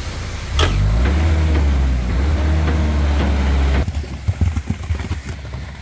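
Concrete line pump's engine running loud, its pitch rising and falling, after a sharp knock about half a second in. It cuts off suddenly a little before four seconds, leaving quieter scattered knocks.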